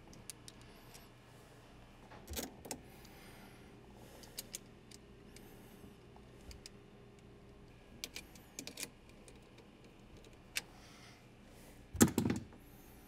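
Scattered clicks, taps and small clunks of hands handling red battery cables, ring terminals and a Minn Kota 60-amp circuit breaker, with a louder knock near the end.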